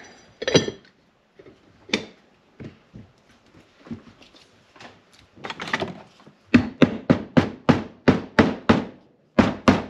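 Rubber mallet knocking on a Dual Range Hydra-Matic transmission part to drive it into its housing. A few scattered knocks come first, then about six and a half seconds in a quick run of about four blows a second, a short pause, and more blows near the end. The part is going together harder than it should, a sign something inside is not right.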